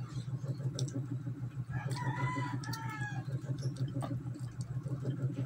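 A rooster crows once in the background, a drawn-out pitched call starting about two seconds in. A steady low hum runs underneath.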